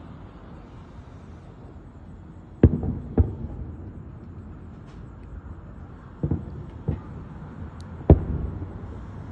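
Aerial firework shells bursting: five booms, each trailing off in echo. The loudest come about a third of the way in and near the end, over a steady low rumble.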